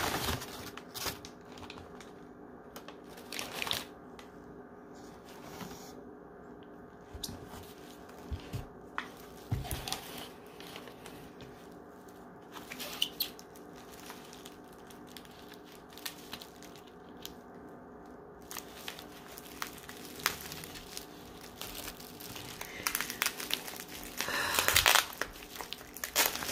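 White packing paper rustling and crinkling as it is handled and pulled out of a cardboard box, in scattered bursts with quieter pauses between, loudest near the end.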